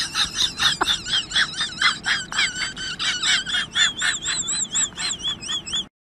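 Rapid high-pitched warbling chirps, several a second, with a wavering pitch that settles into a regular up-and-down trill towards the end, then cut off abruptly.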